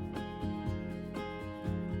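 Background music: a track with plucked or strummed guitar and a steady beat.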